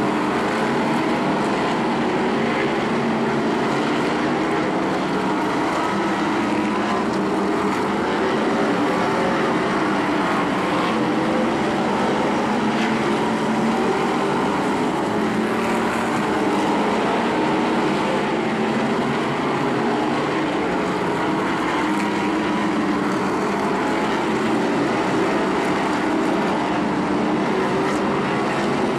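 A pack of asphalt modified race cars running at racing speed, several V8 engines blending into one steady, loud drone. Their overlapping pitches rise and fall as the cars go through the turns.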